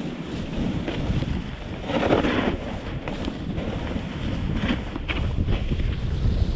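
Wind buffeting a GoPro's microphone while skiing downhill, with skis hissing and scraping through chopped-up snow; a louder scrape of snow comes about two seconds in, and a few short scrapes near the end.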